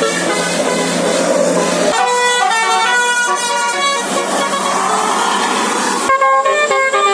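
Bus 'basuri' telolet multi-tone horn playing a tune in short stepped notes over road and engine noise. About six seconds in the sound cuts abruptly to a cleaner run of melodic notes without the noise.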